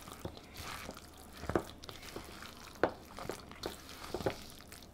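A spoon stirring milk into a thick, wet pinto bean fritter batter in a mixing bowl: soft, irregular squelches with short clicks of the spoon against the bowl.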